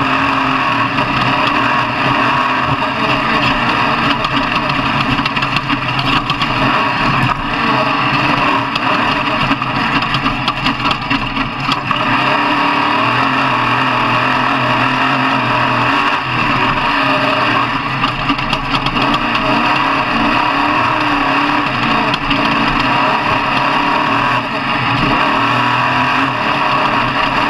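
Off-road race truck's engine running hard, loud and steady, easing off briefly a few times in the first half.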